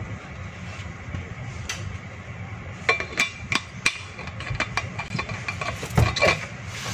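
A run of sharp clicks and knocks, most of them between about three and six and a half seconds in, from a bag and clothing being handled on a bunk, over a steady low hum.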